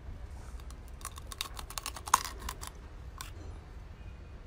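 Sea urchin shell cracking and crunching between teeth as it is bitten open: a quick run of sharp cracks and clicks, the loudest about two seconds in, with one more crack a second later.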